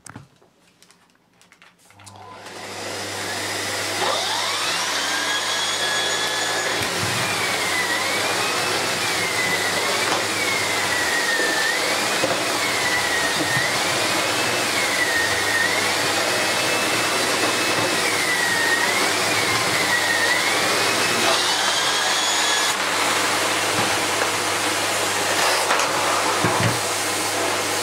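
Miele Revolution 500 S556 canister vacuum switched on about two seconds in and running at full, with the whine of its electric powerhead's brush roll rising and falling as the head is pushed back and forth over carpet.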